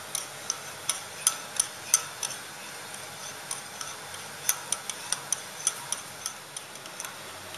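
Metal spoon stirring a milky liquid in a small glass bowl, clinking lightly against the glass in an uneven rhythm of a few clinks a second.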